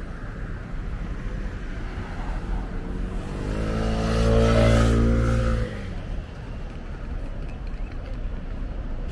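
A motor vehicle passing close by on a city street. Its engine hum swells over a couple of seconds, peaks about halfway through, then drops away abruptly, leaving steady traffic noise.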